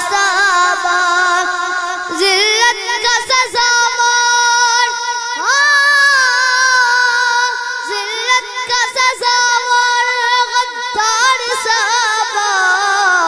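A boy singing a devotional Urdu kalam into a microphone, drawing out long, wavering held notes without pause.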